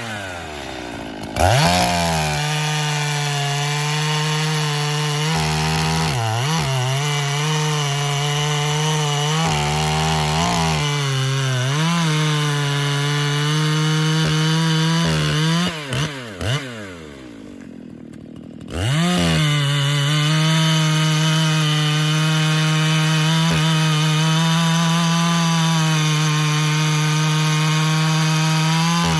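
Chainsaw with an Oregon M72X3 chisel chain running at full throttle through a cut in pin oak. The engine note sags briefly a few times under the load, drops to idle for a couple of seconds about two-thirds of the way in, then revs back up and cuts steadily again.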